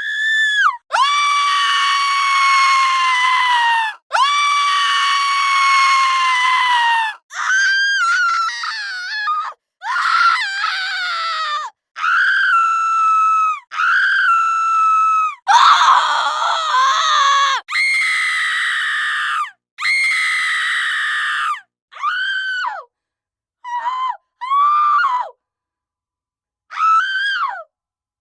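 A woman screaming again and again at a very high pitch. The early screams are long and held for two to three seconds each, some cracking or turning raspy; later ones are shorter, with longer gaps between them.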